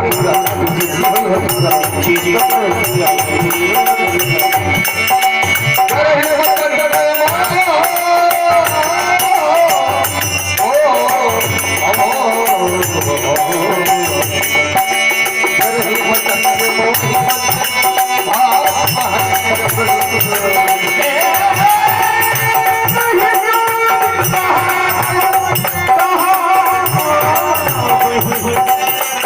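Indian devotional folk music: a singer's wavering melody over a steady held drone, driven by fast, continuous rattling percussion.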